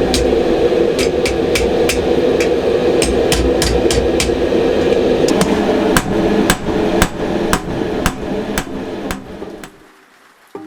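Hammer blows on mild steel sheet, a steady run of sharp ringing strikes about three a second. From about six seconds in the blows come more slowly and grow fainter, stopping shortly before the end.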